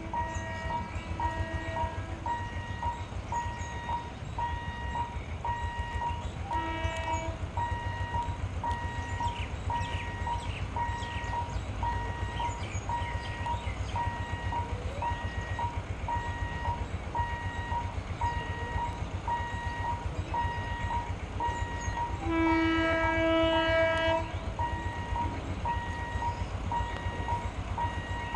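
An electric multiple unit local train sounding its horn as it approaches: short toots near the start and again about seven seconds in, then a long blast, the loudest sound, about 22 seconds in. Throughout, a level-crossing warning signal beeps steadily about twice a second over a low rumble.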